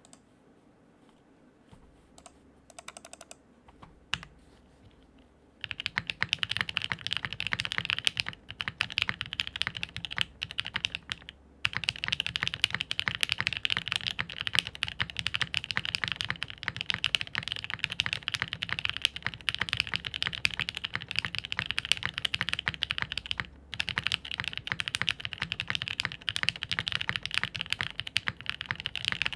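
Fast, continuous typing on a Singa Jaguar custom mechanical keyboard with a half POM plate, lubed and filmed NovelKeys Cream switches and GMK Taro keycaps. A few faint clicks come first, the steady typing begins about six seconds in, and it pauses briefly twice.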